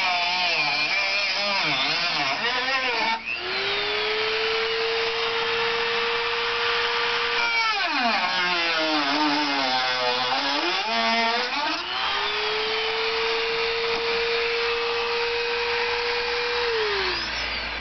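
Handheld corded rotary tool cutting slots out of a plastic pool deck drain: a high motor whine whose pitch wavers and dips as the bit bites into the plastic, and holds steady between cuts. Near the end it winds down as it is switched off.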